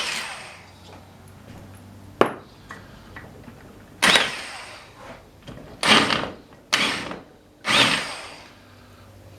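Tool noise on a Briggs & Stratton 8 hp flathead engine as the base is being unbolted: a sharp click about two seconds in, then four short noisy bursts, each fading within about a second.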